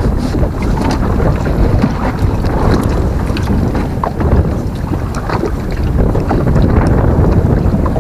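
Wind buffeting the microphone: a steady, loud low rumble with a few faint ticks through it.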